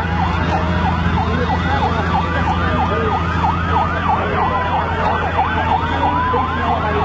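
Emergency sirens sounding together: a fast yelp of about three sweeps a second over a slower wail that rises and falls, above a steady low drone.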